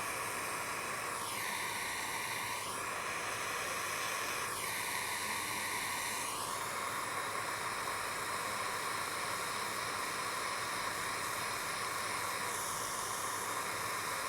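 Steady hiss of a jeweller's gas soldering torch flame heating small silver chain links for soldering, its tone shifting briefly twice in the first seven seconds and again near the end.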